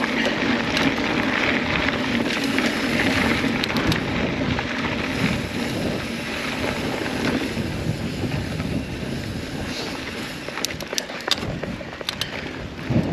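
Riding noise of a mountain bike on a dirt trail: steady wind on the microphone with tyre and frame rattle. It eases off toward the end, with a few sharp clicks.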